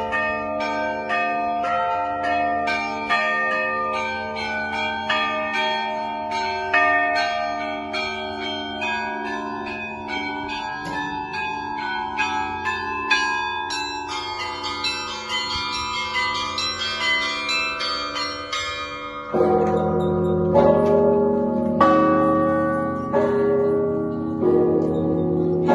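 Russian bell ringing (zvon) from the Spaso-Preobrazhenskaya bell tower: small high bells struck in quick, overlapping patterns over a steady lower ringing. About nineteen seconds in, deeper, heavier bells join and the ringing grows louder.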